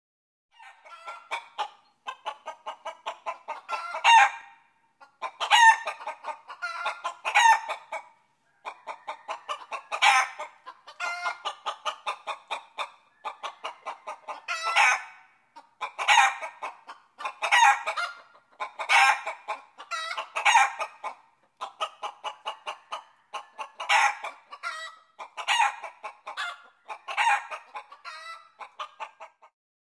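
Chicken clucking in quick runs, each run ending in a louder drawn-out squawk, over and over.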